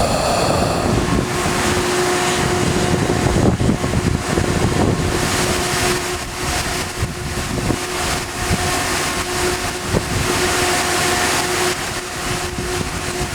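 Hurricane wind buffeting the microphone in a dense, rough rush, with a steady hum running underneath from about a second and a half in.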